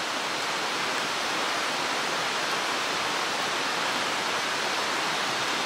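Mountain stream running with a steady, even rush of water.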